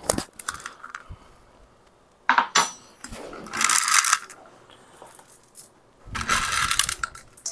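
Semi-sweet chocolate chips shaken out of a glass mason jar, rattling and clinking against the glass and into a stainless steel mixing bowl in three short bursts.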